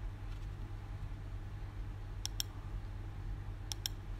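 Computer mouse button clicking: a quick pair of clicks about two seconds in and another pair near the end, over a steady low hum.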